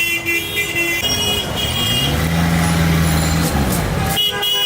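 Street traffic with vehicle horns honking. A deeper engine or horn note rises, holds, and falls in the middle.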